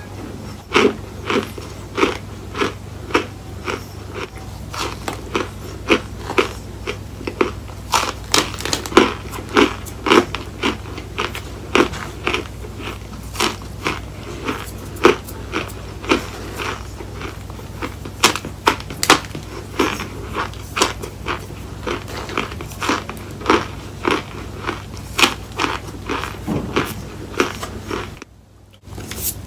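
Close-up chewing of mouthfuls of compacted cornstarch: crisp, squeaky crunches about one or two a second over a steady low hum. The sound cuts out briefly near the end.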